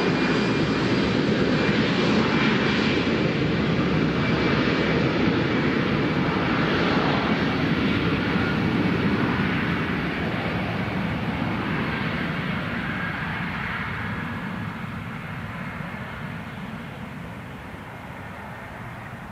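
Airliner's jet engines: a loud, steady rush with a faint high whine. It holds for about ten seconds, then fades steadily.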